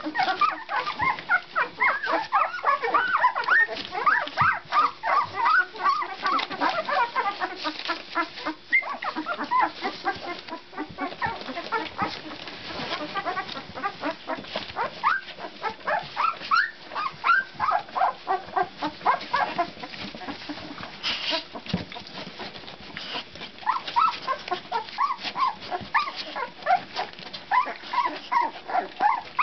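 A litter of 13-day-old Labrador puppies squeaking and whimpering, many short rising squeals overlapping one another without a break.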